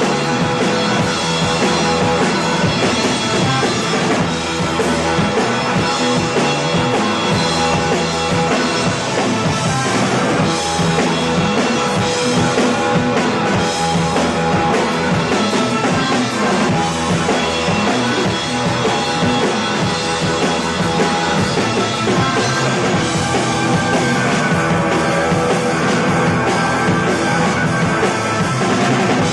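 Rock band playing live, with a drum kit and guitar; the music is loud and keeps going without a break.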